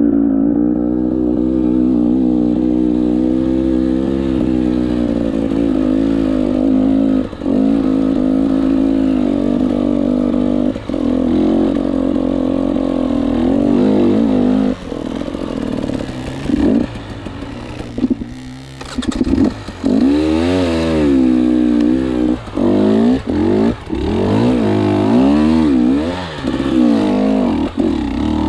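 KTM 300 two-stroke enduro motorcycle engine running. It holds a fairly steady pitch for the first half, then revs up and down repeatedly with several brief drops as the throttle is blipped and shut.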